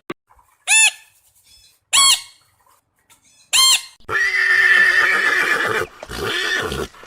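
Animal calls: three short calls that each rise and fall in pitch, then two longer, harsher calls.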